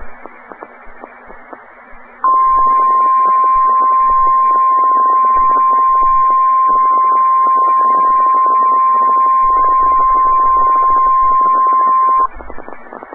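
NOAA Weather Radio 1050 Hz warning alarm tone, one steady pitch held for about ten seconds over radio static. It comes in sharply about two seconds in and cuts off suddenly near the end. This is the weekly test of the alert signal that sets off weather alert receivers.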